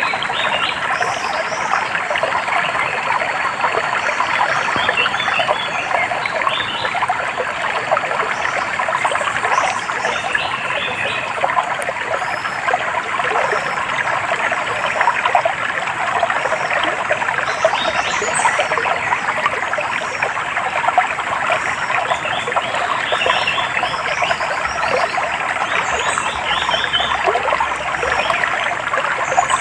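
Small stream trickling and babbling steadily, with short bursts of quick high bird chirps now and then above the water.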